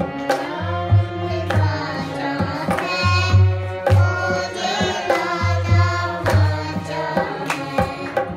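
A Punjabi Zaboor (psalm) sung by voices to harmonium and dholak. The dholak plays a repeating rhythm with deep bass strokes, while the harmonium holds sustained chords under the singing.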